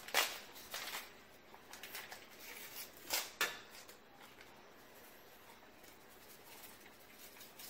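Small foil Sazón seasoning packets crinkling and being torn open, in a few short sharp rips over the first three and a half seconds.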